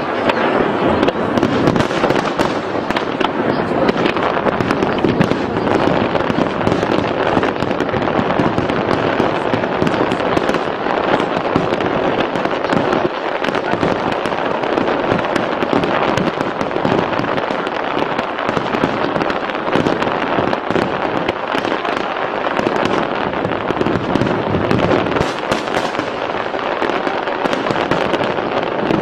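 Aerial fireworks display in a dense barrage: shells bursting and crackling in rapid, overlapping succession without a break.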